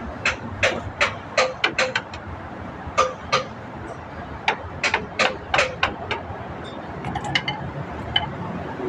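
A hammer tapping on metal: about fifteen sharp, ringing strikes in uneven groups, quick runs of taps with short pauses between them.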